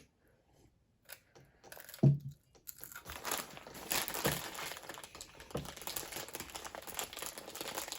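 Plastic snack packaging crinkling and crackling as it is handled, a dense run of quick crackles that starts about two and a half seconds in. A brief low voice sound comes just before it, about two seconds in.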